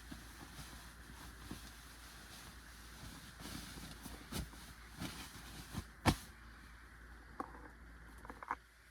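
Faint rustling and handling noise of a fabric compressible camp pillow being unfolded and shaken out, with scattered soft taps and a sharper knock about six seconds in.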